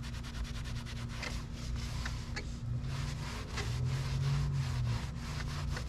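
Microfiber towel rubbed rapidly back and forth over a cloth-covered truck sun visor, scrubbing stains out of the fabric with cleaner, over a steady low hum.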